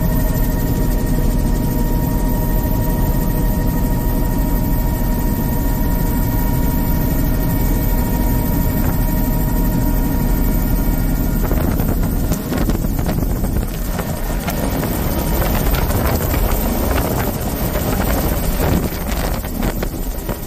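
Helicopter cabin noise: a steady, loud drone of rotor and engine with a thin steady whine over it. About halfway through the whine drops out and the noise turns rougher and gustier, like wind buffeting.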